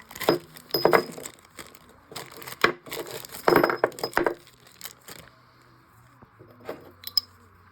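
Metal pieces of a bottle jack's take-apart pump handle clinking and knocking together as they are handled. The knocks come in short clusters, the loudest about three and a half to four seconds in, then mostly quiet with a couple of light clicks near the end.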